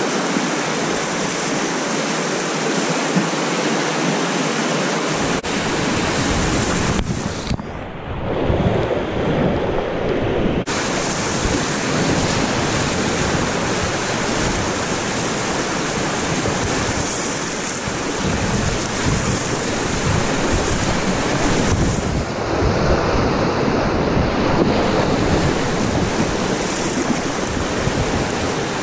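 River rapids rushing and splashing around a packraft, with wind and water buffeting the microphone and a deep rumble beneath. A few seconds in, the sound turns muffled for about three seconds, then comes back.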